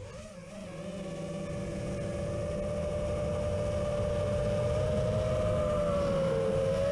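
Brushless motors and propellers of an Emax Hawk Sport 5-inch FPV quadcopter whining steadily in flight, heard from the camera on the drone itself, with low wind rumble. The sound swells over the first two seconds, and the pitch dips briefly near the end as the throttle eases.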